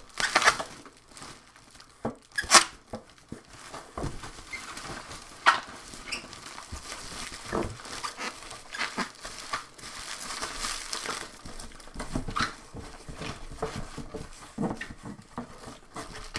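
Bubble wrap crinkling and rustling as it is pulled open and handled, with sharp crackles, the loudest in the first six seconds.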